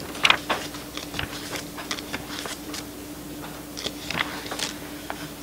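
Paper pages being leafed through and handled close to a microphone: a string of short, irregular rustles and clicks over a steady hum.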